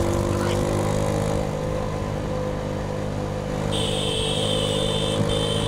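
A vehicle engine running steadily at an even pitch. About two-thirds of the way in, a high steady tone joins it and breaks off briefly once.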